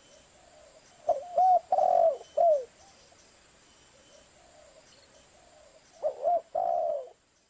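Spotted dove cooing: two phrases of low, looping coos, the first about a second in and the second near the end, with fainter cooing between them.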